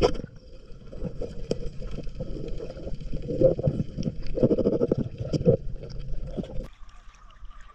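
Speargun shot underwater: a sharp crack, followed by several seconds of crackling and knocking underwater noise while the speared fish is fought and pulled in on the line. The noise cuts off suddenly about a second before the end.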